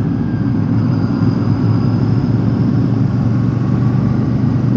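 Royal Enfield Super Meteor 650's 648 cc parallel-twin engine running steadily while the bike is ridden at a constant pace, mixed with wind and road noise on the rider's microphone.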